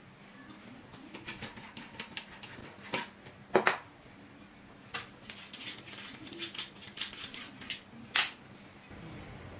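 Small industrial microscope cameras handled on a desk, giving runs of light ticks and clicks as one camera is twisted off the lens mount and another is picked up. There are two sharp knocks about three and a half seconds in, as a camera is set down on the desk, and another just after eight seconds.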